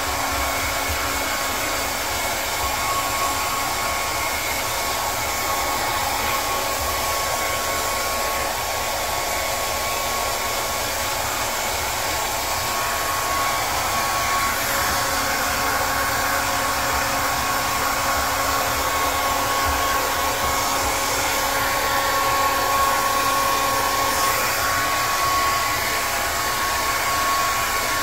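Hair dryer running steadily: a continuous rush of blown air with a thin, steady whine in it.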